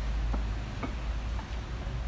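Footsteps on a paved sidewalk, three light ticks about half a second apart, over a steady low rumble.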